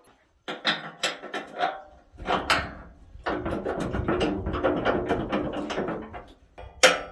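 Knocks and clatter of metal parts being worked into place on a tractor roll bar, with a longer stretch of scraping and rattling in the middle and sharp knocks near the end.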